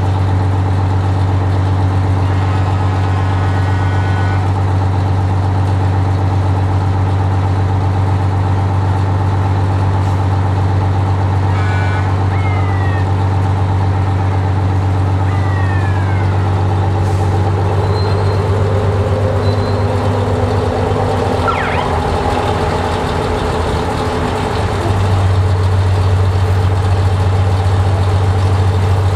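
Antique fire trucks' engines idling, a steady low drone. A few short falling squeals come around the middle, and for several seconds in the last third the engine sound changes before the steady drone returns louder.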